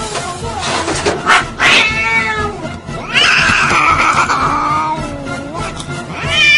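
A cat meowing loudly in drawn-out, wavering yowls: a shorter call about two seconds in, a long call of over two seconds sliding down in pitch, and another starting near the end.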